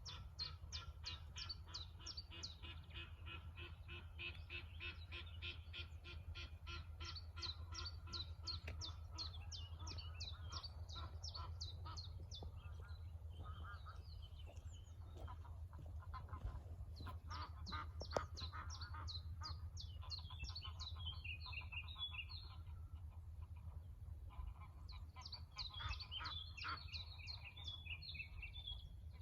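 Birds calling in a dense run of rapid, repeated high notes that thin out twice before picking up again, over a steady low rumble.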